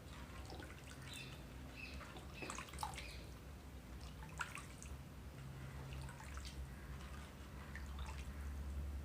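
Rasam heating in a clay pot, with faint scattered bubbling and small pops as it comes up toward the boil, over a low steady hum.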